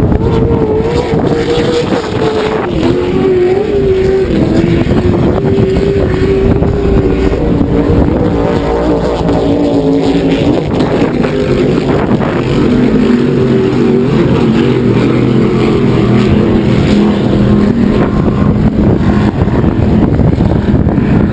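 Racing powerboat's engines running hard as the boat speeds past offshore, their pitch sinking slowly over about twenty seconds. Wind noise on the microphone runs underneath.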